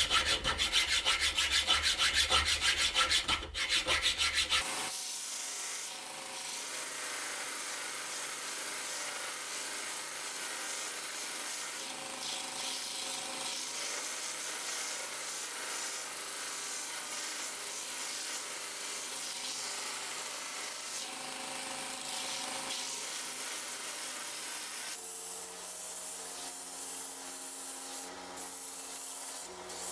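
Hand-tool abrasion on a workpiece: fast, rhythmic rasping strokes for about the first five seconds, then steady, quieter rubbing like sanding.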